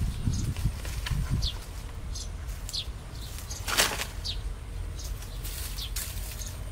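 Dry sticks and branches rustling and crackling as they are picked up and handled by hand, with one louder crunch about four seconds in.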